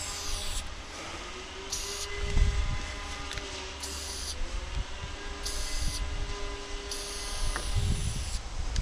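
Aerosol spray-paint can hissing in five short bursts, the last the longest, as graffiti outline lines are sprayed. Under it runs a steady whine of several tones from a train, bending up slightly at first and dying away near the end.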